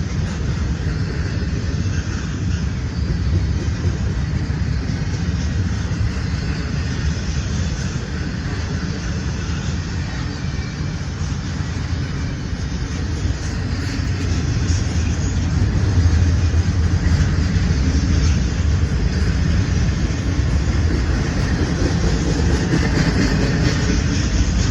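Norfolk Southern freight train rolling past: a steady, heavy rumble of railcars on the rails, growing a little louder past the middle.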